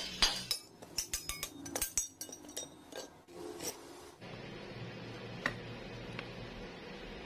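Hammer striking a steel plate to knock out a grinder-cut disc: about ten sharp metallic knocks over the first three seconds. After that, a couple of light metal clinks as a steel pipe is set into the hole, over a steady low hum.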